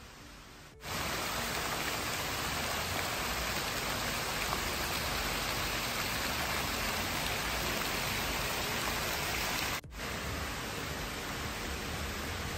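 Decorative fountain jets splashing down into a shallow pool: a steady, even rush of falling water. It starts about a second in and cuts out for an instant near ten seconds.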